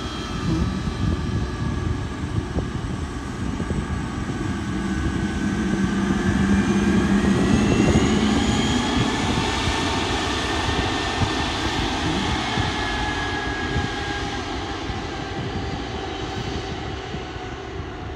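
Jet engines of a Delta Boeing 757-200 at taxi power as the airliner moves past, a steady rush under a whine that rises and then falls in pitch. It grows loudest about halfway through and fades toward the end.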